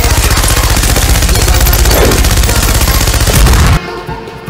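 Machine-gun sound effect: one long burst of rapid, evenly spaced shots that cuts off suddenly a little before the end, where quieter music takes over.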